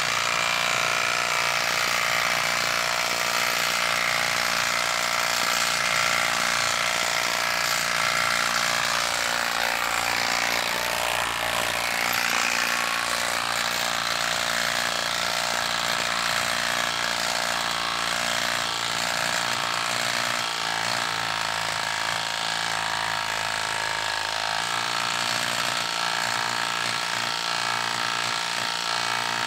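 Milwaukee M18 Fuel half-inch compact impact wrench hammering continuously as it drives a 5/8-inch by 8-inch lag bolt into wood. The impacts run as a fast, even rattle at a steady level, with no pause.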